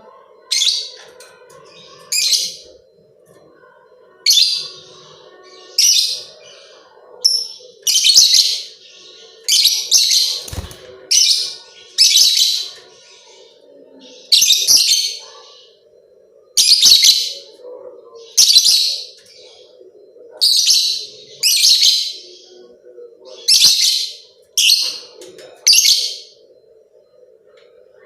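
Lovebird calling: a string of short, shrill chirps, one every second or two, over a faint steady hum.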